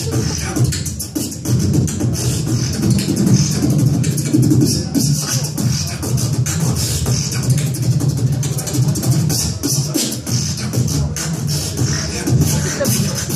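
Solo beatboxing into a handheld microphone, amplified: a fast run of sharp percussive clicks and hissing hits over a steady humming bass line.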